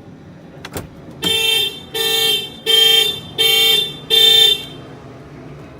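The Mitsubishi Triton's factory security alarm sounding the truck's horn in five short, even blasts, about 0.7 s apart. This is the alarm set off by a door being opened while the truck is locked. A sharp click comes about a second before the first blast.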